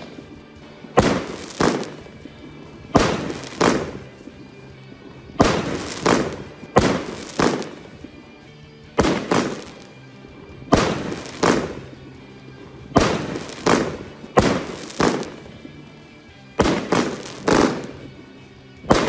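An 11-shot firework cake with 30mm tubes firing: sharp thuds and bangs from the shots leaving the tubes and bursting, coming in close pairs about every two seconds. Steady background music runs underneath.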